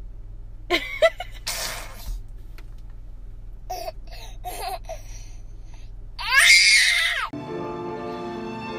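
A toddler giggling in short bursts, then a long, loud, high-pitched shriek of laughter about six seconds in. Music starts near the end.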